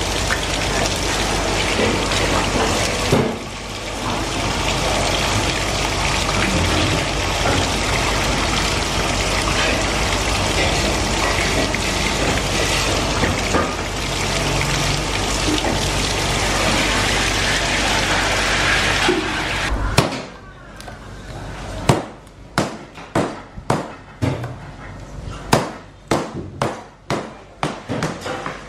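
Tap water running steadily over a sturgeon as it is rinsed by hand. About 20 seconds in it stops abruptly, and a kitchen knife strikes a plastic cutting board about a dozen times in quick, irregular chops.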